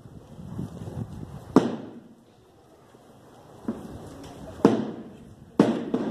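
A series of four sharp cracks or bangs at uneven intervals, each ringing out briefly; the strongest comes about a second and a half in and the last three fall about a second apart.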